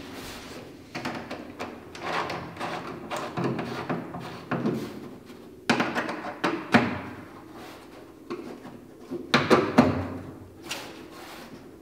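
Clicks, scrapes and knocks of a screwdriver turning screws into Skybolt quarter-turn fasteners on a fiberglass bottom cowling, with the cowling shifting against the fuselage. A few sharp knocks stand out, one about halfway through and a couple near the end.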